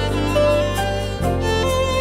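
Instrumental music: a violin plays a slow melody of held notes over a steady low accompaniment.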